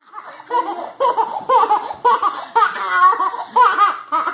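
A baby laughing in short, high-pitched giggling bursts, one after another.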